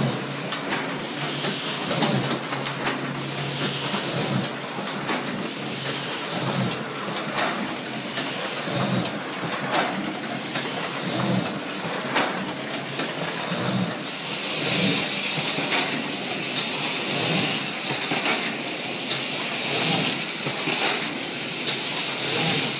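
Heidelberg KSBA cylinder letterpress running, its mechanism clattering over a steady hiss as it feeds and prints sheets.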